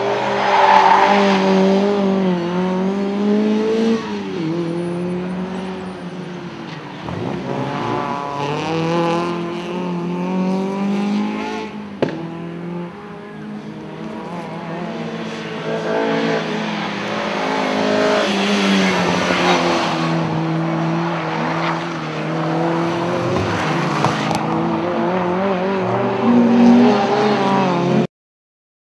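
Mk1 Ford Escort rally car's engine revving hard, its pitch rising and falling repeatedly as the car is driven round the circuit, with tyres squealing at times. The sound cuts off abruptly near the end.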